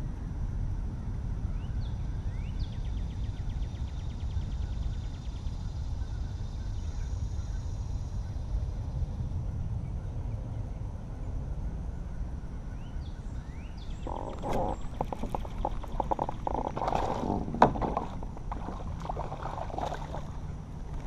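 A hooked bass thrashing and leaping at the surface: a run of sharp water splashes begins about two-thirds of the way in, with the loudest splash shortly before the end. A steady low rumble lies underneath.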